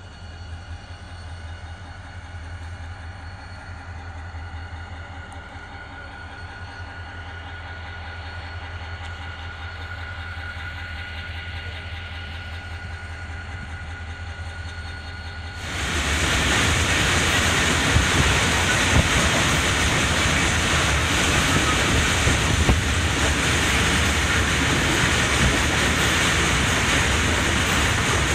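Passenger train running on the rails: a steady hum with a faint high whine, then about two-thirds through a sudden jump to a much louder rush of rail noise with some wheel clatter.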